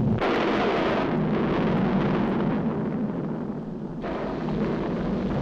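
Cartoon sound effect of a volcano erupting: continuous rumbling, explosive noise, dipping slightly near the end.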